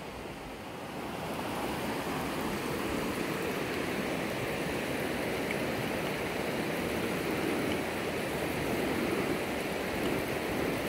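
Fish frying in hot oil in a pan over a wood fire: a steady sizzle that grows louder about a second in and then holds.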